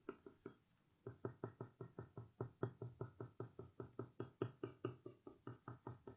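Pencil scratching on drawing paper in quick, short, even strokes, about five a second, with a brief pause just before a second in.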